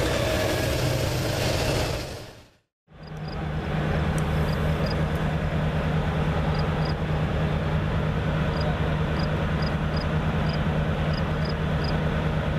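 A freight train passing, with a dense rumble that fades out about two and a half seconds in. Then a Reading & Northern F9 diesel locomotive runs with a steady low drone, standing idle.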